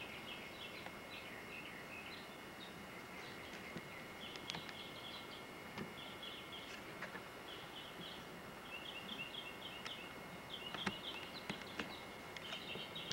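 Small birds chirping in repeated quick clusters of short notes, over a steady hiss, with a few faint sharp clicks scattered through, the sharpest about eleven seconds in.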